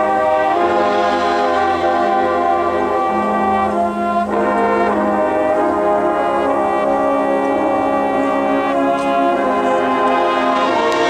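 Marching band brass section playing sustained full chords that shift every second or so, with a low brass note held for about two seconds partway through. Percussion strikes come in near the end.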